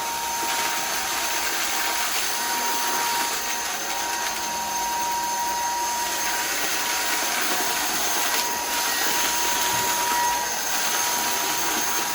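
Shark IZ320UK cordless stick vacuum running steadily on its mid (normal) power setting, its DuoClean brush roll working over carpet: a constant whine over an even rush of air.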